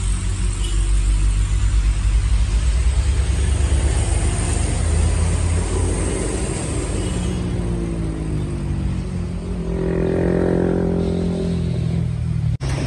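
Diesel engines of heavy trucks, one laden with sugarcane, working through a sharp bend: a steady low rumble with the engine note rising as a truck pulls through the turn. A brief dropout near the end.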